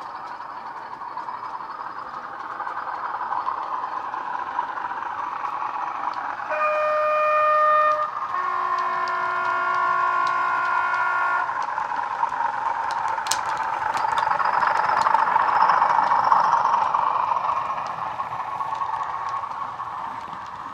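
Legomanbiffo DCC sound decoder in a Bachmann Class 40 model locomotive, playing through a pair of 27mm speakers: a recorded English Electric diesel engine running. A two-tone horn sounds about six seconds in, a high note then a lower one. The engine sound swells as the model comes close, then eases off near the end.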